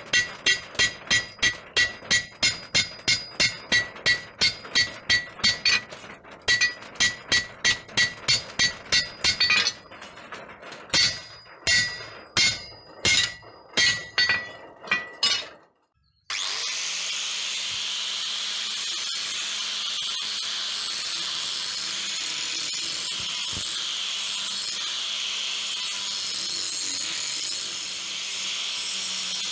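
Hand hammer striking a red-hot leaf-spring steel machete blade on a railway-rail anvil, about three ringing blows a second with short pauses, slower toward the end. After a sudden cut about sixteen seconds in, an angle grinder runs steadily, grinding the blade.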